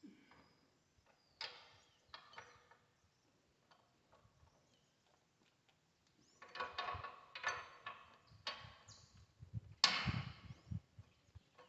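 Hand tools clicking and clanking on a tractor's diesel engine as a wrench works bolts during cylinder-head removal. A few scattered clicks at first, then a quick run of metal knocks from about six seconds in, loudest near the end.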